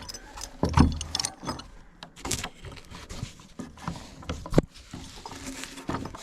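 A metal chain rattling and clanking as it is handled, in irregular knocks and clinks.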